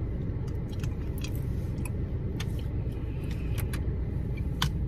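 Steady low rumble inside a car cabin with the engine running, with a few scattered small clicks and a sharper click near the end.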